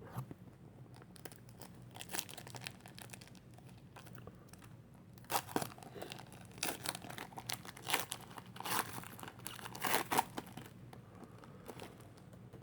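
A foil trading-card pack wrapper crinkling and tearing as it is opened, in scattered short crackles with a few louder rips.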